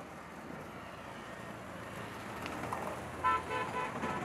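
Steady traffic and city ambience, with a horn starting about three seconds in, sounding in short repeated blasts.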